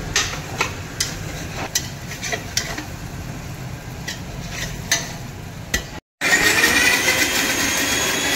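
A spatula knocking and scraping in a steel kadhai while onions fry with a light sizzle. After a short break in the sound about six seconds in, a Sujata Dynamix mixer grinder's motor starts and runs, its whine rising as it spins up.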